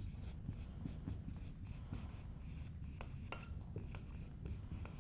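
Dry-erase marker writing on a whiteboard: a quick string of short squeaky strokes with a few sharper taps as letters are written.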